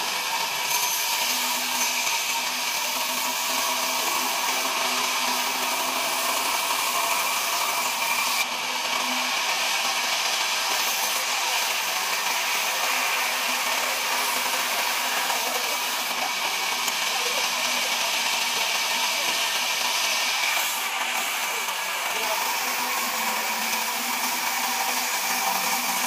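Log band saw running steadily, its blade cutting lengthwise through a large log to saw off a slab.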